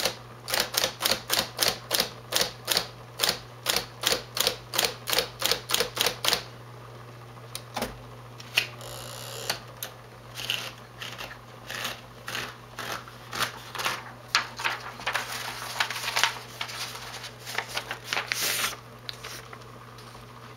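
Smith Corona 5TE electric typewriter typing with its motor humming steadily: a fast, even run of key strikes, about four or five a second, for roughly six seconds, then softer, irregular clicks and rustles.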